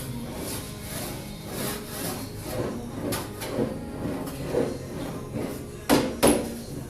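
Sheet-metal panel being rolled back and forth through an English wheel, a rhythmic sliding rumble about twice a second as the panel is stretched and shaped. Two sharp knocks sound close together about six seconds in.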